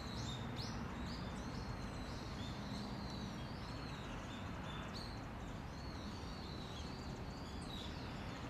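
Small songbirds calling with many short, high chirps and sweeping notes, over a steady low background rumble.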